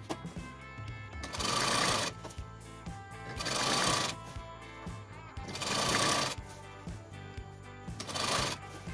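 Sewing machine stitching cotton fabric, under background music. A hissing swell rises and fades about every two seconds.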